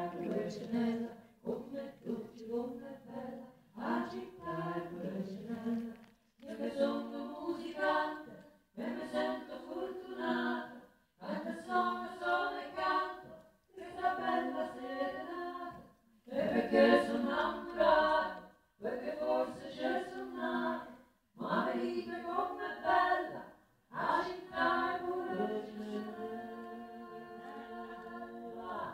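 A woman singing unaccompanied in short phrases separated by brief pauses, ending on one long held note.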